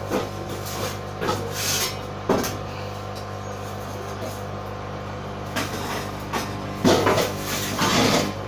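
LG WD-80155NUP washing machine running with a steady low hum shortly before the spin, with a series of irregular clattering knocks, the loudest cluster near the end.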